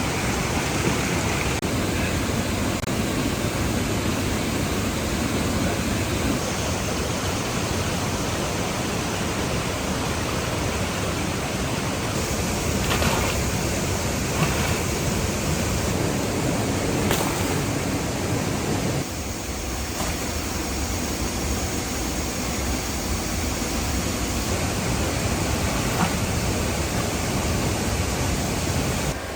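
Steady rush of a waterfall, with a few brief knocks in the middle; the rush drops slightly in level about two-thirds of the way through.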